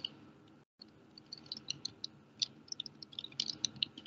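Computer keyboard being typed on: faint, scattered key clicks, a few at a time, growing busier toward the end.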